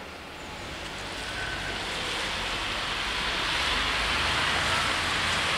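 Car tyres hissing on a wet road, growing steadily louder as the cars approach and drive over the level crossing.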